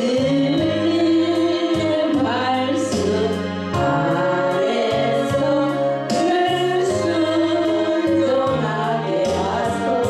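Christian gospel song: voices singing a melody in choir-like harmony over an instrumental accompaniment with a moving bass line and a regular beat.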